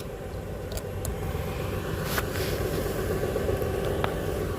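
Vehicle engine idling steadily, with a few faint clicks over it.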